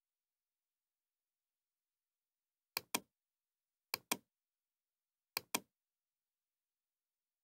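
Three computer mouse clicks, each a quick double tick of button press and release, the first nearly three seconds in and the others about a second apart, with silence between.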